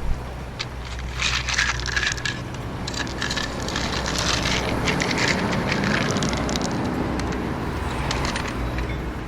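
Stones clattering and scraping against plastic toy construction vehicles as they are scooped and tipped, in dense rattling bursts over a steady low hum.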